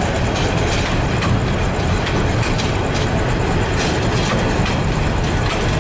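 Container freight train's wagons rolling past close by: a steady low rumble of wheels on rail, with repeated clicks as the wheels cross rail joints.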